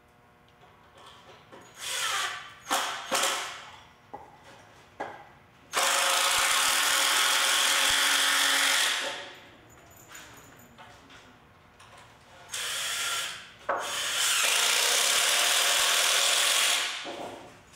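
Cordless impact driver sinking wood screws into 2x4 pine framing: a few short starting bursts, then two long runs of about three seconds each as screws are driven home.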